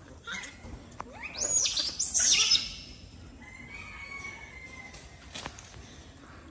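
Two short, loud, high-pitched screeches from a macaque, about a second and two seconds in, each rising and falling in pitch. A fainter drawn-out call follows.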